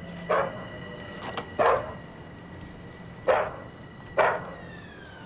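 An Akita dog barking, four short sharp barks spaced about a second apart.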